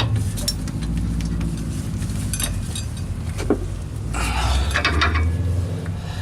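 Metal clicks and clinks from a torque wrench and hand tools tightening the differential fill plug, with a denser rattle about four seconds in, over a steady low rumble.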